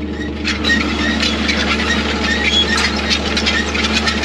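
Tractor engine running steadily while the steel discs of a disk harrow clatter and scrape on stones, with short repeated squeals: steel on stone in very stony ground. The clatter gets louder about half a second in, as it comes through the open cab window.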